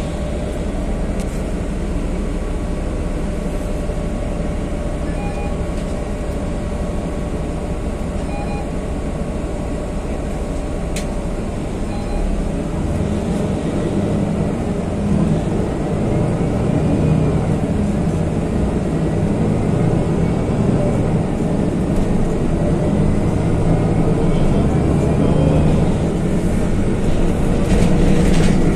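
BMC Belde city bus heard from inside the cabin while on the move: a steady engine and road rumble that grows louder about halfway through.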